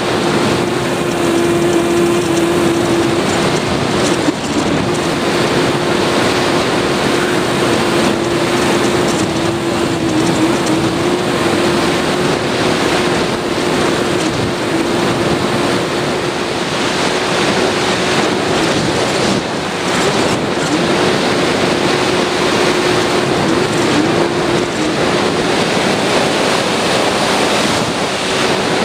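Electric motor and propeller of a Sky Surfer/Bixler-type foam RC plane running in flight, a steady hum under loud wind rush on the onboard microphone. The hum wavers and drops out briefly a few times.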